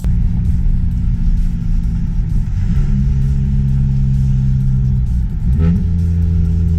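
Car engine and exhaust running at a steady note. About five and a half seconds in, the pitch climbs quickly as the revs rise, then holds at a higher, steady note.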